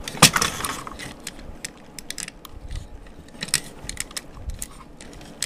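A toy truck's moving parts being worked by hand: plastic and metal clicking and rattling in scattered knocks, with the loudest knock about a quarter second in.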